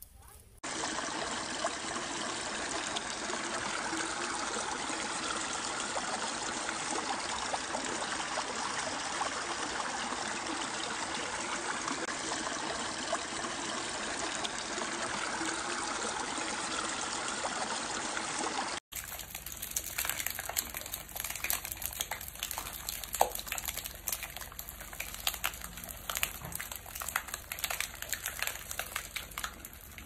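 Running stream water, a steady even splashing flow that starts about half a second in and cuts off suddenly about 19 s in. A quieter stretch with scattered clicks and crackles follows.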